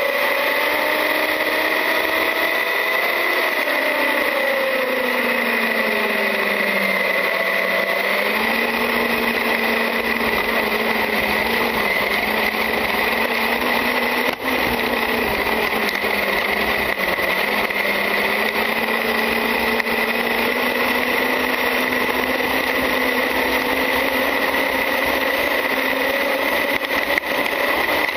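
Onboard sound of a Traxxas UDR radio-controlled truck driving: its brushless electric motor and geartrain whine, falling in pitch in the first several seconds and rising again later as the speed changes, over rolling tyre and ground noise. A steady high-pitched whine sits on top throughout.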